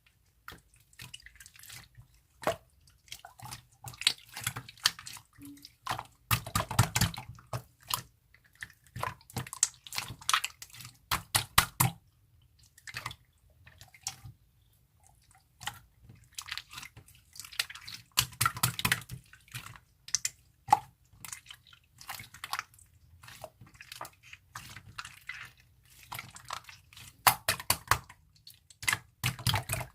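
Slime being squeezed and pressed by hand, making wet, sticky popping and squelching crackles in dense clusters with short pauses between them.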